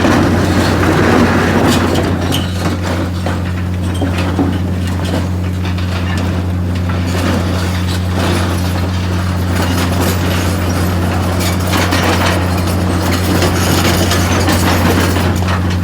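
Steady low drone of the crane barge's engine running, with irregular mechanical clanking and rattling over it.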